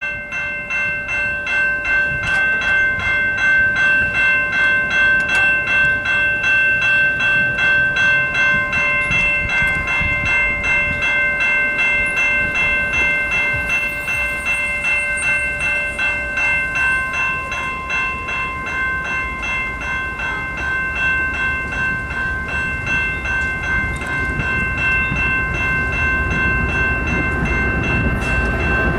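Railway level crossing warning bell ringing repeatedly, about two strokes a second, as the crossing signals flash. Near the end, the low rumble of the approaching Canadian Pacific freight train grows under the bell.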